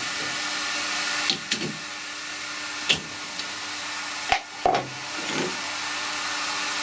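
Colchester lathe winding down after boring brass, its machinery humming steadily, with sharp metallic clicks and knocks at intervals as the chuck is stopped and the brass workpiece is taken out.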